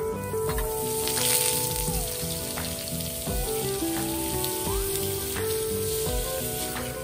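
Banana frying in hot oil on a flat roti griddle, a steady sizzle that swells about a second in. Background music plays over it.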